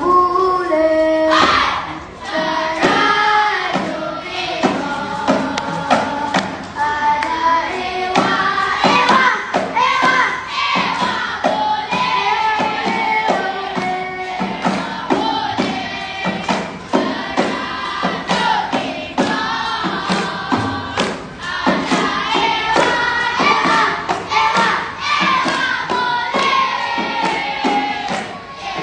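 A group of children singing together in unison, accompanied by fast, rhythmic hand claps and slaps on their bodies, as in a seated body-percussion dance.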